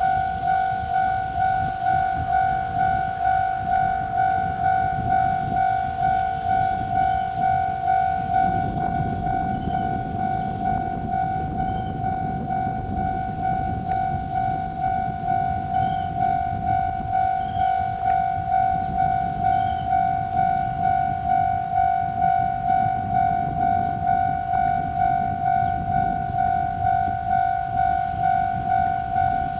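Japanese railway level-crossing warning bell ringing in a steady repeating ding, about twice a second. From about eight seconds in, a low rumble of a train on the rails joins it.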